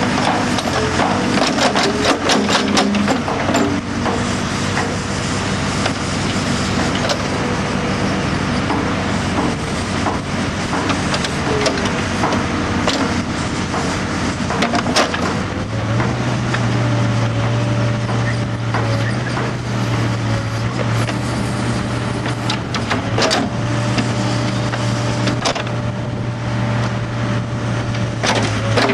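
Heavy excavating machinery's engine running steadily under load, with scattered metallic clanks and knocks of the digging work. The engine note steps up to a steadier, stronger hum about halfway through.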